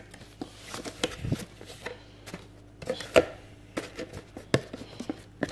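Cardboard speaker box and its packaging handled by hand: irregular taps, knocks and rustles as the box flaps and paper insert are moved, with a couple of sharper knocks about three and four and a half seconds in.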